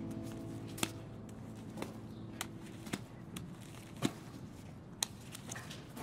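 Handling sounds from items being taken out of a bag on a wooden table: a string of sharp, separate taps and clicks with soft rustling between them, the loudest about four seconds in.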